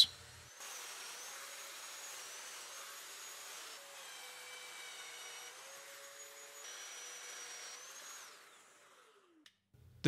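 Festool Domino DF 500 joiner running while plunge-cutting mortises, a steady motor whine with dust-extractor hiss that steps slightly in pitch a few times. The motor winds down about eight seconds in.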